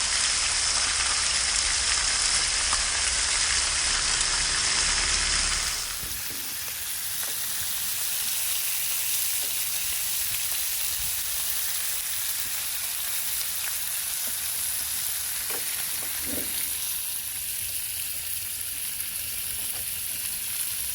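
Shaved ribeye and peppers frying in bacon grease in a cast iron frying pan: a steady sizzling hiss, a little quieter after about six seconds.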